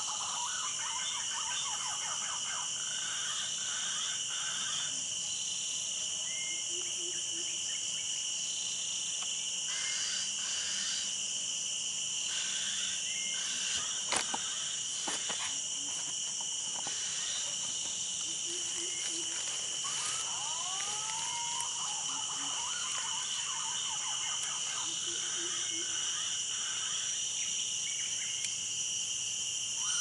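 Steady, high-pitched drone of forest insects, with scattered short bird calls. There is one sharp click about halfway through.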